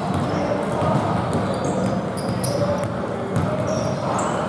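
Basketball game in play: the ball bouncing on the court, short high sneaker squeaks, and players' voices in the background.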